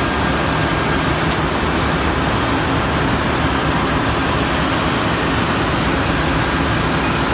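Steady drone of running machinery in a ship's engine room, with one light click about a second and a half in.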